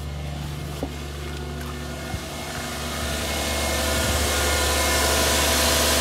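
Toyota Cresta JZX100's 1JZ straight-six idling steadily, running again after a fuel pump replacement cured its crank-no-start. It grows louder and closer in the second half.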